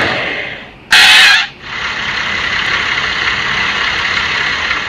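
Truck sound effect: a short loud hiss about a second in, then steady truck engine and road noise.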